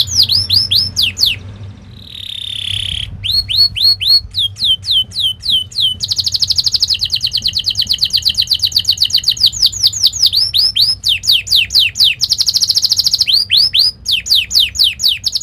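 Domestic canary singing: sharp downward-sweeping notes repeated several times a second, broken by rapid rolling trills. There is a brief softer warble about two seconds in.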